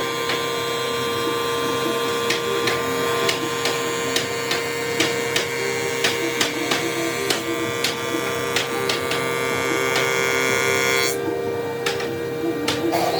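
An electric woodworking machine's motor running with a steady whine of several tones, with repeated sharp clicks and knocks through it. The higher part of the whine drops out about eleven seconds in.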